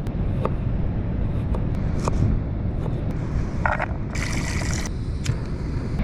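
Small clicks and scrapes of camp cooking gear being handled to make tea, with a short hiss about four seconds in, over a steady low rumble.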